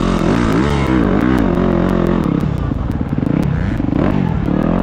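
Motocross bike engine heard from on board, revving up and down repeatedly as the throttle is worked around the dirt track.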